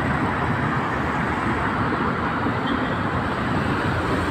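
Steady road traffic noise: cars passing continuously along a busy seafront road.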